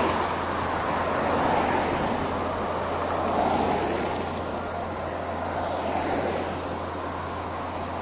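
Road traffic going by on a busy street: cars passing close, their tyre and engine noise swelling and fading a few times.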